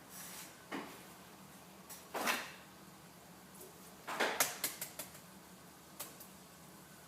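Kitchen handling noises: a few short knocks, clatters and rustles as things are picked up and set down, with a quick cluster of clicks about four seconds in.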